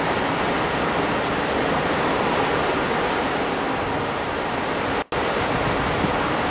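Steady, even rushing noise with no tone or rhythm, broken by a split-second dropout about five seconds in.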